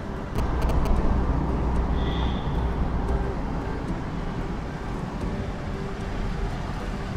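Steady engine and road rumble inside the cabin of a Mahindra TUV300 SUV driving through city traffic, with a short high-pitched beep about two seconds in.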